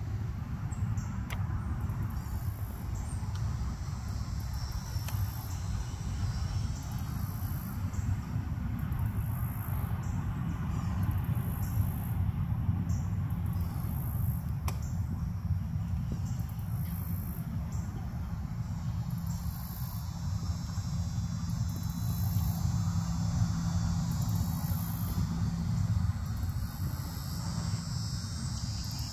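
Insects, likely crickets, chirping in high-pitched repeated pulses over a steady low rumble. A faint steady drone joins for several seconds in the middle.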